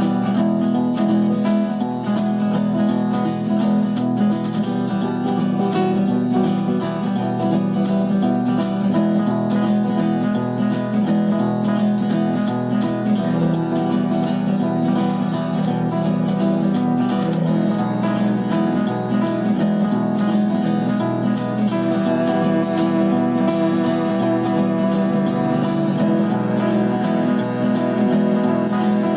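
Background music led by acoustic guitar, strummed and picked, playing an instrumental passage without singing.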